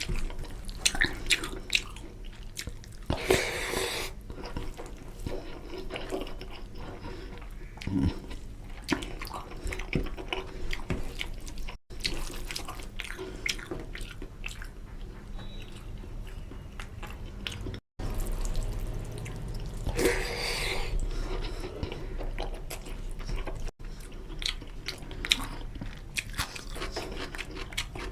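Close-up eating sounds: wet chewing, lip smacks and clicks of a mouthful of chicken curry and rice, with a few louder noisy bursts such as slurps or sharp breaths.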